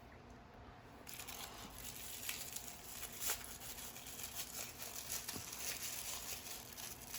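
A small plastic packet crinkling as it is handled and torn open. It starts about a second in and goes on as steady rustling with many small sharp crackles.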